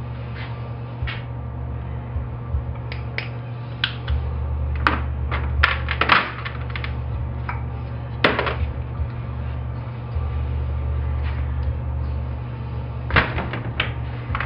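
Hand tools and small metal parts clinking and clanking on a metal tray while a chainsaw engine is being taken apart, with several louder clanks in the middle. A steady low hum runs underneath.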